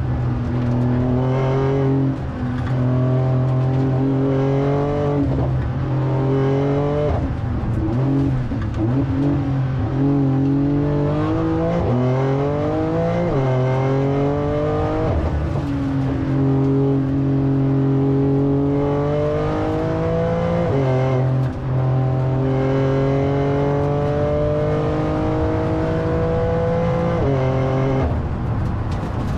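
Porsche 911 Turbo S twin-turbo flat-six under hard acceleration, heard from inside the cabin. Its pitch climbs steadily and drops sharply about six times as the dual-clutch gearbox shifts up, with a short uneven stretch between pulls.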